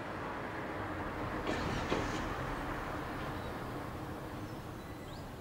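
Steady outdoor background noise with a low rumble, and a brief clatter about one and a half to two seconds in.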